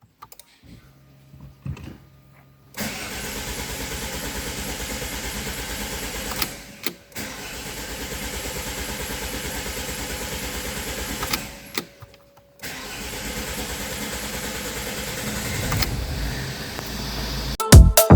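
Alfa Romeo 159 2.0 JTDM diesel engine cranking on the starter motor in three attempts of about four seconds each, with short pauses between them, without catching: a no-start that the owner traced to a faulty injector. Music starts near the end.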